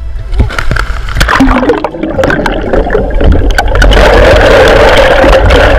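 Seawater splashing as a large fish is let go over the side of a boat, followed by loud, steady muffled rushing and gurgling water heard with the microphone underwater from about four seconds in.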